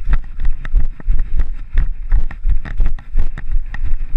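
Running footsteps on a muddy forest trail, an even beat of about three strides a second, with wind rumbling on the microphone.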